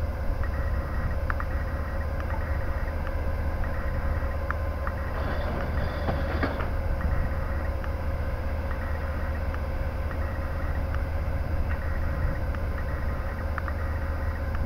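Caterpillar diesel engine of a DB Class 363 shunting locomotive running steadily at low revs: a deep drone with a steady hum over it and a few faint ticks.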